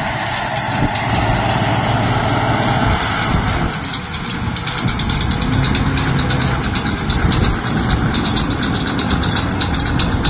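Valtra tractor's diesel engine running steadily as it pulls a large square baler and draws close, with a dense run of fast clicks from the working baler over the engine hum.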